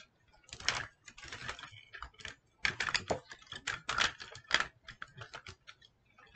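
Plastic parts of an Optimus Prime Transformers figure clicking and rattling as they are handled and a tab is clipped into place, in a string of sharp irregular clicks that come thickest in the middle.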